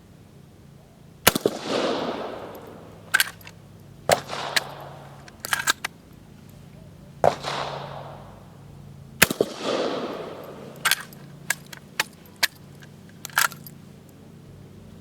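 Century Arms PW87 lever-action 12-gauge shotgun fired four times, each shot echoing away, with sharp metallic clacks of the lever being worked between shots. A run of several more lever clacks comes near the end. The ammunition extracts and cycles stiffly.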